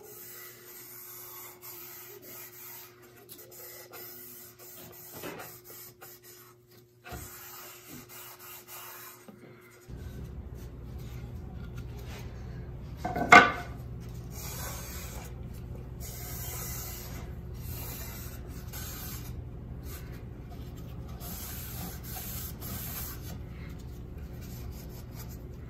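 A cloth rag, a ripped-up t-shirt, rubbing wipe-on polyurethane finish onto a walnut picture frame: a soft, uneven rubbing over the wood. A low steady hum comes in about ten seconds in, and one short, louder sound stands out a few seconds later.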